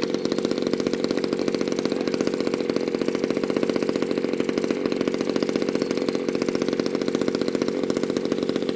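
Small model-airplane engine running at a steady speed, a fast even buzz that neither rises nor falls.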